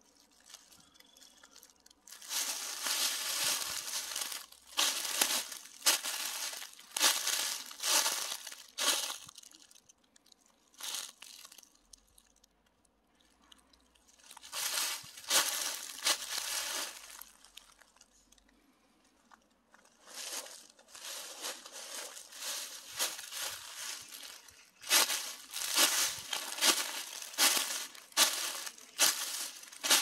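Footsteps crunching through dry fallen leaves on a forest floor, about one step a second, in three stretches with short pauses between.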